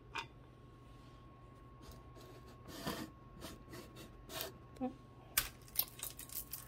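Faint, scattered clicks and light clatter of costume jewelry being handled, beads and metal pieces knocking together, with a quick cluster of clicks near the end.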